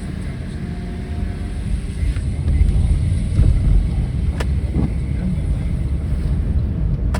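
A car being driven, heard from inside: a steady low road and engine rumble that grows a little louder about two seconds in, with a couple of sharp clicks.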